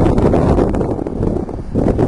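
Strong wind buffeting the microphone, a loud gusting noise that eases briefly near the end and then swells again.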